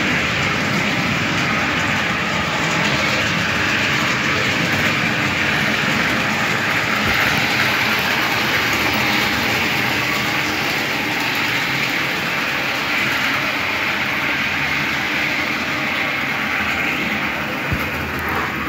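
Model electric trains running on a model railway layout: a steady whirring rattle of small locomotive motors and wheels on the track.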